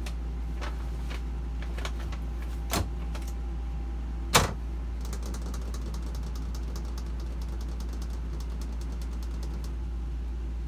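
Wooden cabinet doors being handled and pushed shut: a few light knocks and one sharp knock about four seconds in, then a run of fast light ticks for several seconds. A steady low hum runs underneath.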